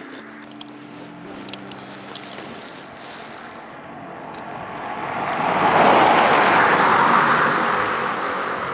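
A car driving past on a snow-covered road. Its tyre and engine noise swells over a few seconds, peaks about six seconds in, then slowly fades as it goes away.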